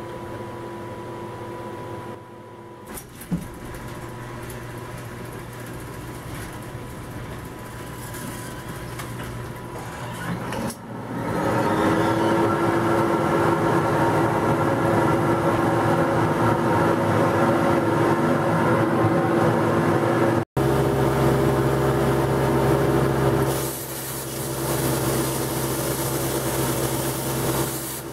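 Sawdust extraction blower used as a plasma table's downdraft ventilation, switching on about eleven seconds in and running as a loud steady rush of air with a steady hum. About twenty seconds in the sound breaks off and comes back with a deeper hum.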